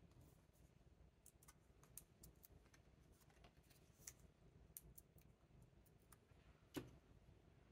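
Faint, scattered small clicks and ticks of hands handling a cardstock strip and pressing adhesive foam squares onto it, with one sharper click near the end.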